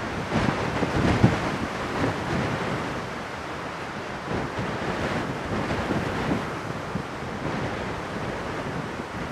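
Wind rushing over the microphone, with a few low buffeting bumps in the first second or so.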